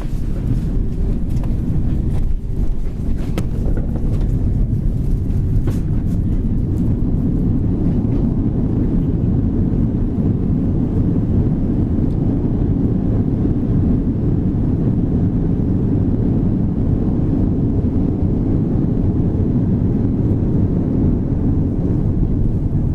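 Steady low rumble of an Airbus A330-200 heard inside the cabin during landing, with a few brief knocks and rattles in the first several seconds.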